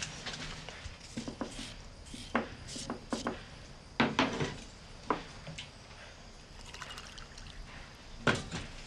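Scattered light knocks and clinks of a small wooden cup, a jar and a bowl with a spoon being handled on a table, the loudest about four seconds in and again near the end.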